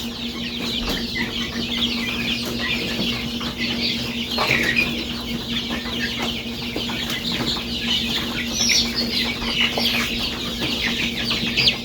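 A brood of young chicks peeping continuously, many short high-pitched calls overlapping, over a steady low hum.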